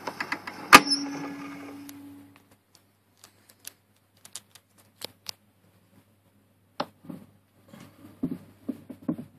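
The final chord of a violin recording played on a Victrola acoustic gramophone, with one sharp strike just under a second in and a low note ringing away over the next second and a half. Then come scattered faint clicks from the needle and soundbox, and near the end a run of knocks and clatter as the gramophone's soundbox and tonearm are handled and lifted off the 78 rpm record.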